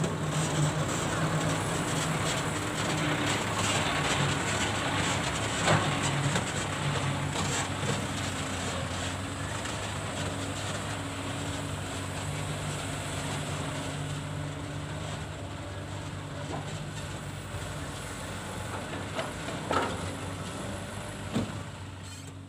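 Diesel engines of a Komatsu PC200 hydraulic excavator and dump trucks running steadily while the excavator works, with a few sharp knocks.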